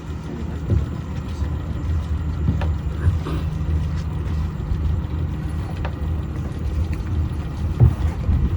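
Small boat's motor running steadily at low speed, a low hum with a few light knocks.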